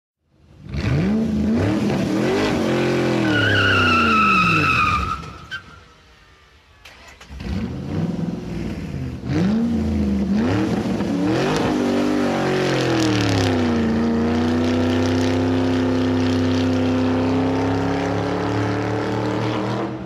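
Car engine accelerating hard, revs climbing and dropping with each gear change, with a tire squeal about three seconds in. The engine falls away around five seconds, then revs up again through several shifts and holds a steady, slowly rising note at speed for the last six seconds or so.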